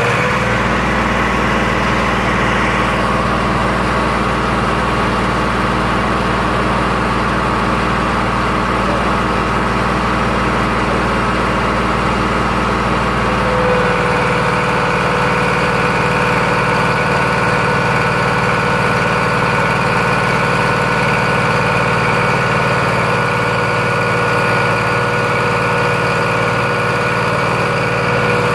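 Zetor 5211 tractor's three-cylinder diesel running steadily while driving a PTO dynamometer (engine brake) for a power test. About halfway through the sound shifts: the deep low part drops away and a steady whine comes in.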